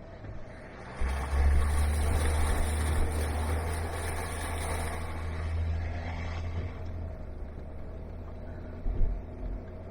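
An off-road vehicle's engine pulls hard, starting about a second in, as it drives through a mud hole. A rushing hiss of tyres and spray comes with it, then both ease off after about six seconds.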